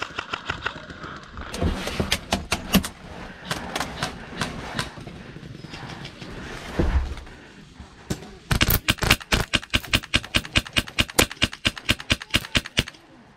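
Airsoft guns firing: scattered sharp shots in the first few seconds, then a long fast run of shots from about eight seconds in until near the end. A dull thud comes just before the fast run.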